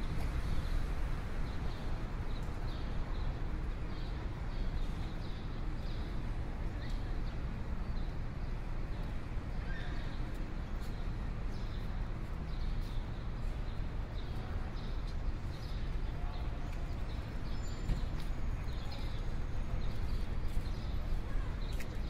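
Laptop keyboard typing: irregular key clicks, a few a second, over a steady low background hum.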